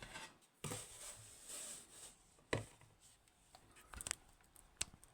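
Handling noise from a lock and lockpicking tools: a rustle in the first two seconds, then a few separate sharp metallic clicks and taps.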